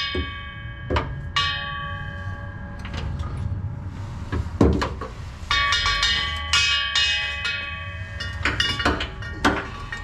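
Outro music of struck, bell-like notes that ring out and die away, over a steady low bass.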